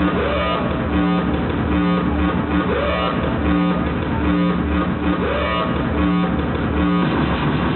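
Loud live rhythmic-noise electronic music over a concert PA: a dense, distorted, looping beat whose phrase repeats about every two and a half seconds.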